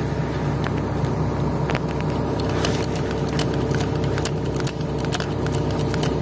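Excavator diesel engine idling steadily, overlaid with sharp metallic clicks of a hand-lever grease gun being pumped into a bucket pin's grease fitting; the clicks start about two seconds in and come more often toward the end.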